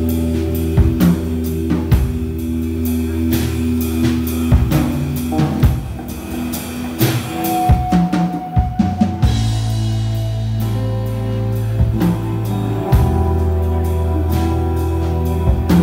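Live rock band playing an instrumental passage: drum kit with cymbal and snare hits, electric bass holding long low notes, and strummed acoustic and electric guitars. The music dips briefly past the middle, then a cymbal crash comes about nine seconds in as the bass moves to a new note.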